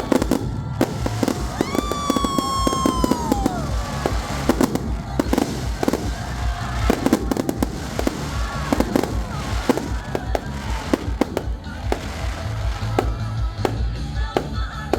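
Fireworks going off: many sharp bangs and crackling bursts, over loud music with a heavy bass. A long falling tone sounds about two seconds in.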